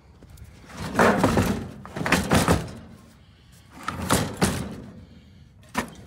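Old copper evaporator coil in its sheet-metal casing being shifted and tipped over on a wooden trailer deck: three rough clattering thuds of metal on wood, then a short knock near the end.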